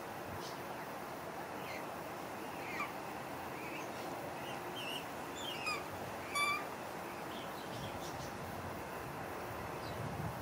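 Birds calling over steady outdoor background noise: a scatter of short chirps and brief gliding whistles. The loudest is one short, bright call about six and a half seconds in.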